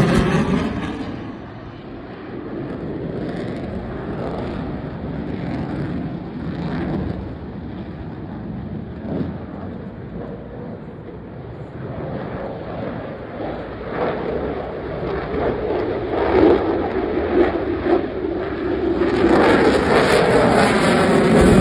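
F-22 Raptor fighter jet's twin turbofan engines making jet noise. The sound is loud and sweeping as the jet passes at the start, eases to a steadier, lower level, then builds again with a sweeping whoosh near the end as it passes once more.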